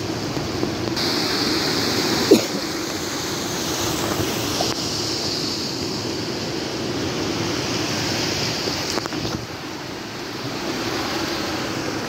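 Steady rushing of river water running among rocks, with one sharp knock a little over two seconds in.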